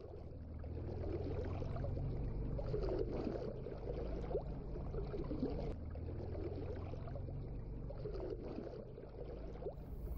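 Floodwater sloshing and splashing as a person wades through it, over a steady low rumble.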